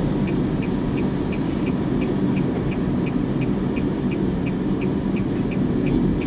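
Car turn-signal indicator ticking evenly, about three ticks a second, over the steady low road and engine noise inside the cabin.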